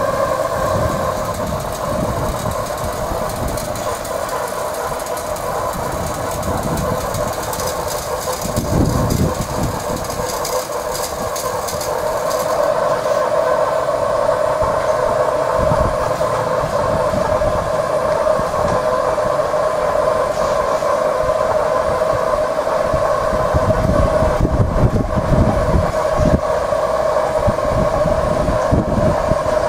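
Standing 15-inch gauge 4-6-2 Pacific steam locomotive 'Typhoon' giving off a steady, pitched hiss of escaping steam. Gusts of wind rumble on the microphone now and then.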